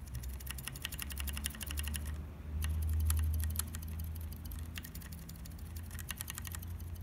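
Mechanical keyboard switch, a Zealio V1 stem in a Red Panda housing, pressed rapidly over and over: a fast run of sharp clicks with a short break a little over two seconds in, with the metal contact leaf rubbing inside the switch. A low rumble underneath swells about three seconds in.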